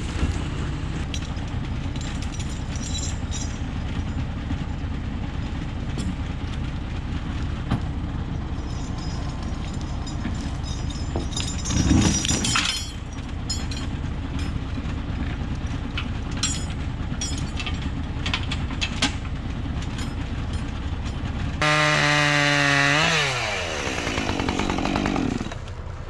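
A tractor's diesel engine runs steadily while working a rear-mounted forestry cable winch, with one loud knock or crash about twelve seconds in. Near the end an engine sound with a clear pitch sets in and falls away over a few seconds.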